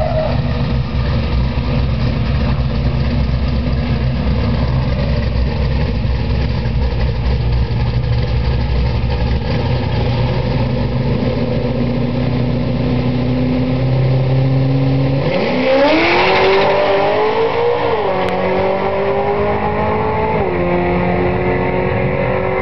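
Naturally aspirated 427 cubic inch Ford Windsor V8 drag car running steadily, then launching about fifteen seconds in: the engine note climbs sharply, then drops in pitch twice a couple of seconds apart as it shifts gears, rising again after each shift.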